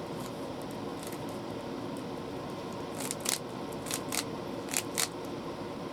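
Rubik's cube layers being twisted, giving about six sharp clicks in quick pairs from about halfway in, as the cube is scrambled.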